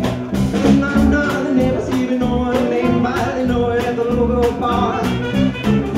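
Live blues-rock band playing between sung lines: a saxophone playing a fill over acoustic guitar, electric bass and drums keeping a steady beat.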